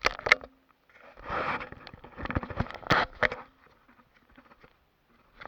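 Handling noise: a few sharp clicks and knocks, with scraping and rustling in between from about a second in, dying away near the end.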